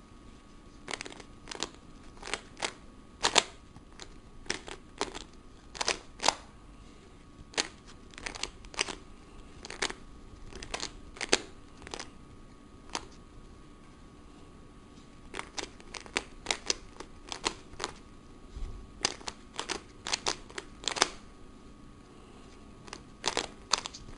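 Plastic 3x3x3 Rubik's Cube being turned by hand: irregular sharp clicks and clacks as the layers are twisted and snap into line, in quick bursts with short pauses. The cube is stiff, one the owner says gets stuck a lot even after petroleum jelly was added.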